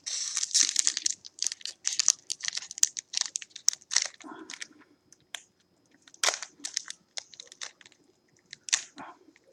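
Trading card pack wrapper crinkling and tearing as it is opened by hand: dense crackling for the first few seconds, then scattered crackles and clicks as the cards are pulled out.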